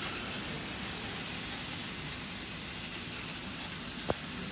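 220W CO2 laser cutting machine cutting MDF sheet: a steady hiss with a faint high steady whine over it, and one short click about four seconds in.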